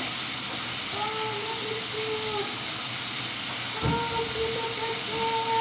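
Steady hiss of water spraying from a grooming-tub sprayer during a standard poodle's bath. A steady pitched hum comes in twice over it, about a second in and again past the middle, just after a single knock.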